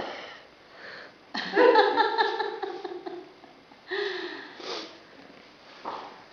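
A person's wordless vocal sounds: a drawn-out, slightly falling voiced sound about a second and a half in, a shorter falling one about four seconds in, and short sniff-like breaths in between.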